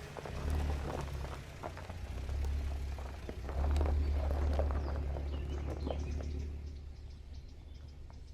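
A low rumble that swells and fades, loudest in the middle, with birds chirping.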